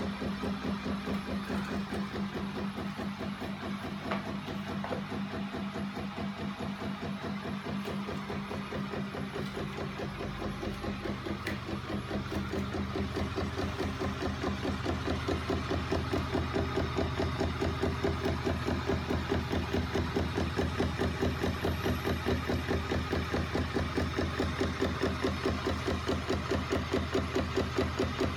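Home-built flapping-wing magnet mechanism with a spinning flywheel, driven by an electric motor, running with a fast, even mechanical beat of knocks from its linkages. The beat grows louder over the second half.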